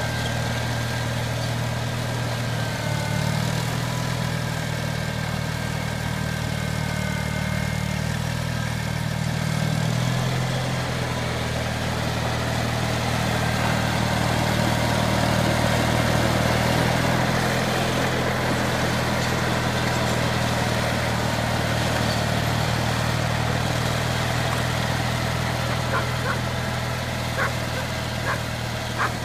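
Small single-engine garden tractor running steadily as it pushes snow with a front plow blade. A few short clicks sound near the end.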